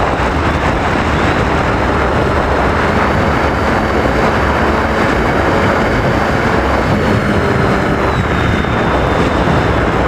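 Wind rush and propeller noise from a radio-controlled FPV airplane in flight, heard on its onboard camera. A faint thin motor whine steps up in pitch about a second in and drops back near the end.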